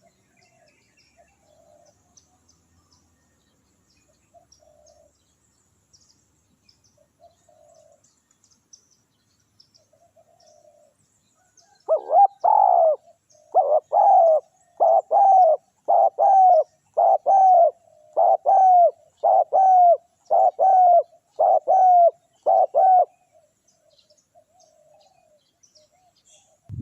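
Spotted doves cooing: faint coos at first, then, about halfway through, a loud close series of about eleven coos at roughly one a second, followed again by faint coos.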